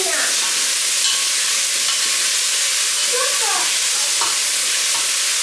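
Chicken pieces frying in hot vegetable oil in a stainless steel pot, a steady hissing sizzle, stirred with a wooden spoon.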